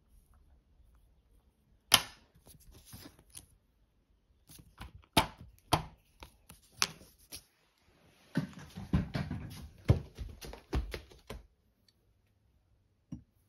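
Small objects being handled on a tabletop: a sharp click about two seconds in, then a series of separate taps and clicks, and near the end a few seconds of rustling and knocking.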